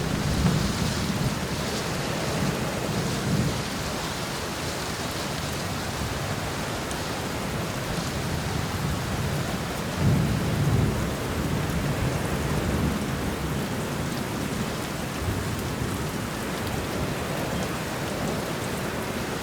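Thunderstorm in a forest: steady rain falling, with low rolls of thunder swelling near the start and again, loudest, about halfway through.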